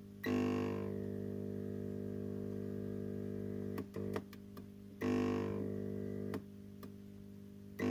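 Failing 20 W T8 fluorescent tube and its choke ballast, at end of life: a loud mains buzz starts abruptly as the tube strikes about a quarter second in, cuts out with a few sharp starter clicks near the middle, strikes again about five seconds in, drops out after about a second and a half, and strikes once more near the end.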